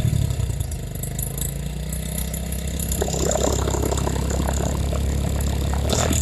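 Honda CD70 motorcycle's small single-cylinder four-stroke engine idling steadily at low revs.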